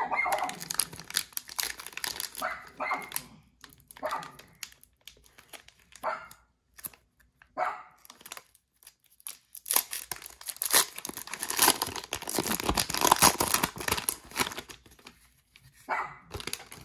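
The plastic wrapper of a football trading-card hanger pack being torn open and crinkled. Scattered short rips and crinkles come first, then a dense stretch of crackling for several seconds past the middle, and a last crinkle near the end.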